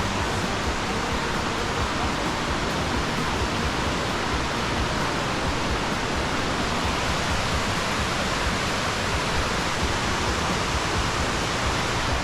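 Rushing creek water, a steady, unbroken wash of noise.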